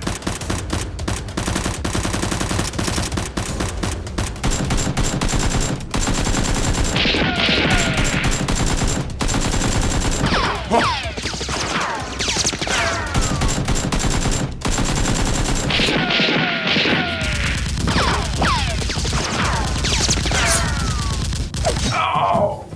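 Sustained rapid gunfire, many shots in quick succession, with short falling whistles cutting through in places.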